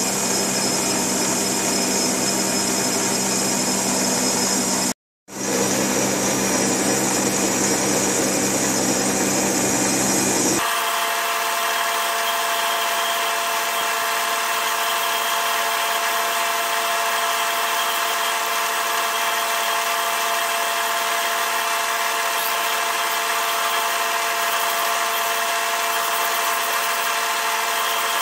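Metal lathe running as a cutting tool turns a brass ramrod pipe, the sound cutting out for a moment about five seconds in. About ten seconds in the sound changes abruptly to the lathe spinning the brass tube while a hand file rubs against it.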